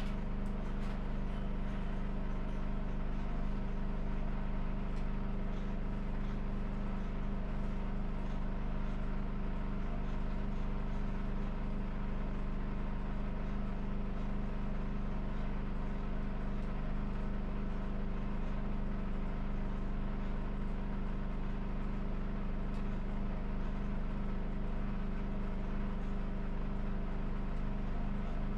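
A steady, unchanging low mechanical hum at one constant pitch.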